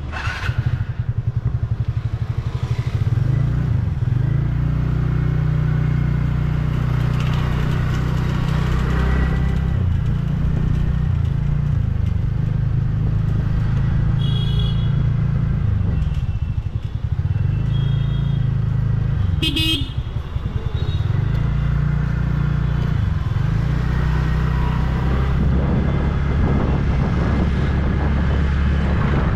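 Scooter pulling away and riding at low speed through city streets, its engine and the wind and road noise making a steady low rumble. A few short horn toots sound around the middle.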